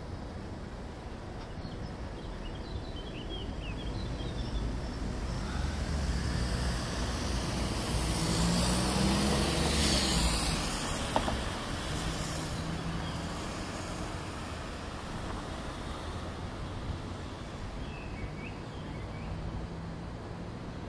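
Steady city road traffic with one vehicle passing close by, its engine and tyre noise building to a peak about ten seconds in and fading away. A few faint bird chirps come early on and again near the end.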